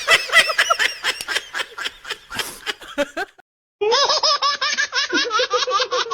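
A person laughing in quick repeated 'ha-ha' pulses that trail off about three seconds in. After a brief silence another rapid, continuous laugh starts.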